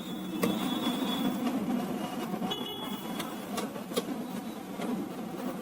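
Scattered light clicks and knocks of the plastic scanner cover of an HP LaserJet M1005 MFP printer being handled and fitted, over a steady low hum.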